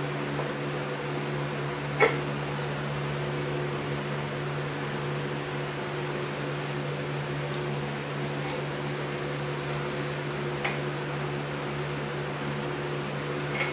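Steady hum of an electric fan running. Over it come a sharp metal click about two seconds in and a fainter one later, as a piston ring is pushed into a cylinder bore of a Ford 302 V8 block with an upside-down piston to check the ring gap.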